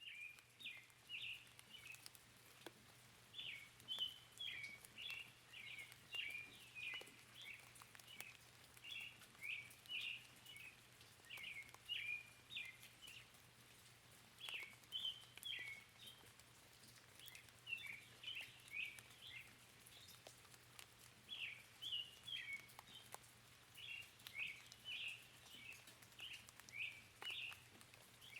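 Faint birdsong: a bird singing quick chirping phrases over and over, with scattered light raindrop ticks.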